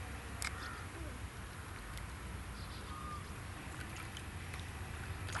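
Quiet outdoor ambience by a pond: a steady low rumble of breeze on the microphone, with a few faint clicks.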